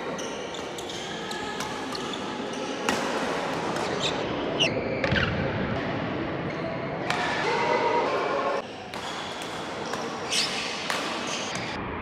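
Badminton rally in a large, echoing sports hall: sharp hits of rackets on the shuttlecock, with a few short squeaks of shoes on the court floor.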